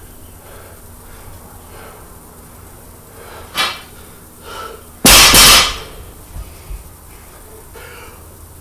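A 30 kg loaded barbell dropped from hip height onto a concrete floor: a loud clanging crash about five seconds in, then two small rattles as it settles. A short sharp clank comes a little earlier as the bar is brought down, with breathing between.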